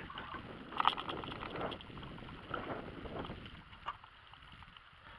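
Water splashing and sloshing at the side of a fishing boat as a large catfish is put back over the side, with a cluster of sharp knocks about a second in. The splashing dies down after about three and a half seconds.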